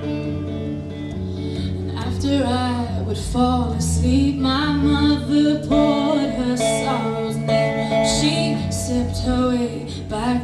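A woman singing a song live over a man's guitar accompaniment. The guitar plays alone at first, and her voice comes in about two seconds in.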